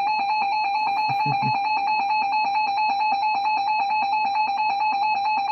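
Emergency Alert System attention signal: a loud, steady two-tone alarm held without a break. It announces an incoming emergency broadcast, here a severe thunderstorm warning.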